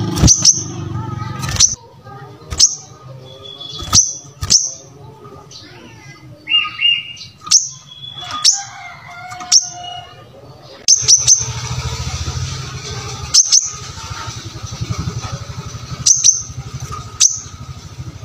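Brown-throated sunbird calling vigorously: a string of sharp, high chips at irregular intervals, with softer twittering notes in between and a low hum underneath at times.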